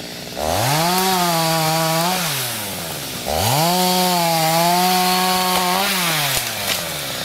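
Gasoline chainsaw revved up to full speed twice, each time held high for about two seconds before dropping back toward idle.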